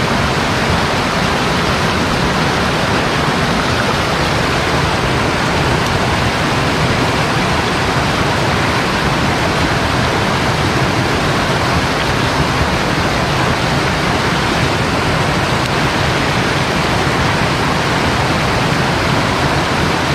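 Mountain stream's current rushing steadily and loudly, an even roar of white water.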